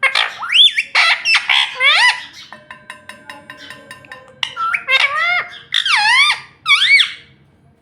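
Indian ringneck parrot chattering and squawking in quick, swooping whistle-like calls that rise and fall in pitch. The calls ease off briefly in the middle, then come back loud in a run of rising-and-falling calls and stop shortly before the end.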